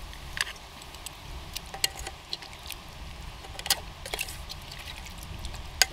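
Scattered light clicks and taps of cooking utensils and pot being handled at a camp stove, with one sharper knock near the end, over a faint low steady rumble.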